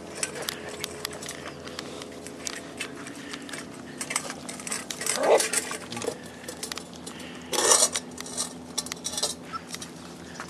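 Beagle puppies nosing and feeding in a stainless steel dog bowl, the metal bowl clinking and scraping on concrete with many quick clicks, a few of them louder.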